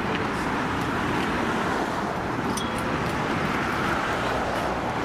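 Steady road traffic noise, a continuous rumble and hiss of cars, with a few faint light clicks.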